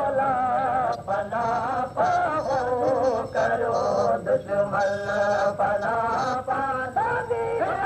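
Male voices singing a Sindhi molood, a devotional song in praise of the Prophet, in wavering melodic phrases with short breaks between them.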